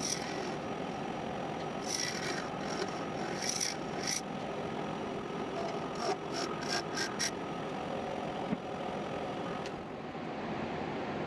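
Wood lathe running while a turning tool scrapes and cuts the end face of a small spinning wooden blank: a steady motor hiss with several short bursts of cutting noise in the middle.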